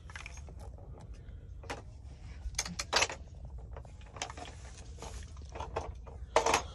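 Scattered light clicks and clacks of toy pieces being handled and knocked together during play, over a low steady hum.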